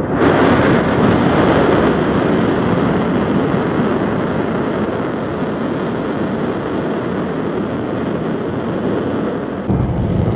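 Dukono volcano erupting: a loud, continuous rushing rumble from the vent that starts abruptly and eases slightly over the following seconds.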